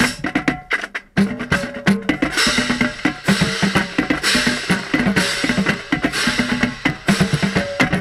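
Marching drumline playing a cadence, led by close-up tenor drums (quints), with snare and bass drums, in fast stick strokes that break off briefly about a second in. A bright sustained wash sits over the drumming from about two seconds in until near the end. The drumheads are damp from rain and not resonating as they usually do.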